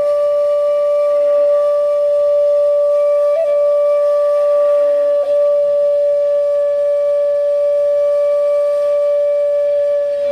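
A single long note from a wind-like instrument, held at one steady pitch with no vibrato and a clear, flute-like tone; it ends just after ten seconds.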